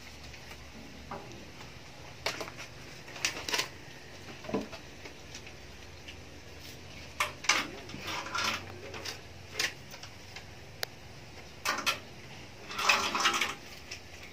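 Irregular short clinks and rustles of handling: paper money being counted and a shoulder bag being rummaged through, a dozen or so separate small knocks and scrapes with a sharp tick near the middle.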